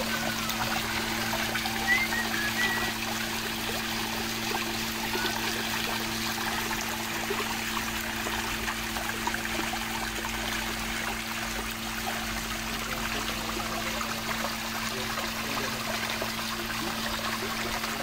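Water from a small artificial grotto waterfall trickling and splashing down stone and pebble tiers into a pool, steady throughout, over a steady low hum. A few short high chirps sound about two seconds in.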